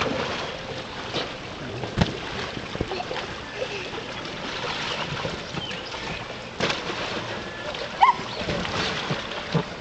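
Water splashing and sloshing as children play in a shallow inflatable kiddie pool, with a few sharper splashes or knocks, the loudest about 2 s in and near the 8 s mark. Faint children's voices come and go.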